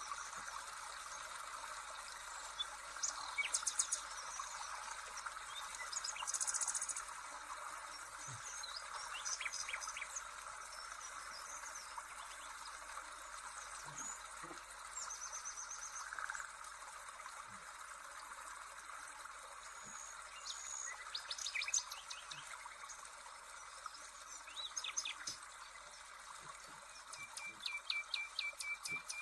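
Dough pieces frying in oil in a pan, a steady sizzle throughout. Over it, birds chirp and trill again and again.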